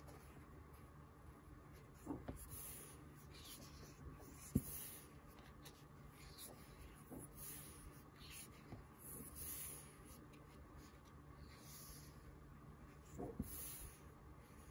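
Quiet rustling and swishing of thick glossy pages being turned by hand in an oversized hardcover comic book, several page turns in a row, with one sharper tap about four and a half seconds in.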